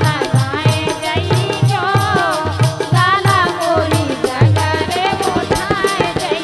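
Bundeli folk song performed live: a woman's sung melody over a steady dholak beat, with light hand percussion clicking along quickly.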